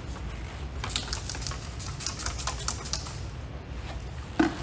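Quick run of light clicks and rustles from small items being handled for about two seconds, then a single thump near the end, over a steady low hum.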